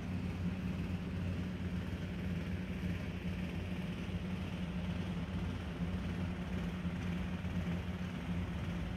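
Steady low hum with an even rumbling noise, and no distinct events.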